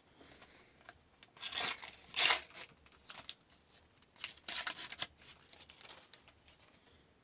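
Paper stickers and card stock being handled and flipped over by hand: a few short dry rustles and slides of paper against paper.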